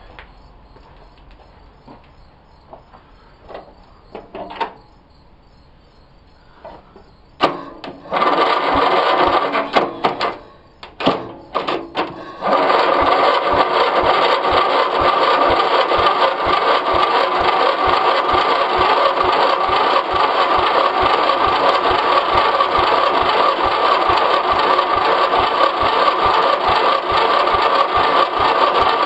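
Electric starter cranking the single-cylinder 11 hp Briggs & Stratton engine of a Simplicity lawn tractor, jumped straight from a battery. After a sharp click there are two short cranking bursts, and from about twelve seconds in the engine cranks steadily with a fast, even pulse. It does not catch: it smells of gas, so the owner suspects no spark and a bad ignition coil.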